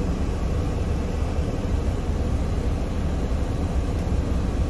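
Steady low rumble of a semi truck's diesel engine idling, heard from inside the cab.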